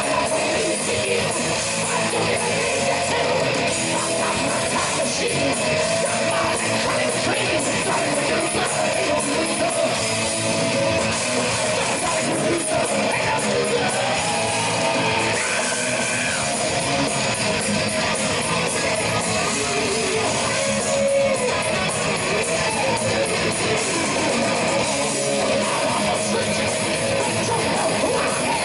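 Thrash metal band playing live at full volume, heard from the audience: distorted electric guitars, bass guitar and drums running without a break.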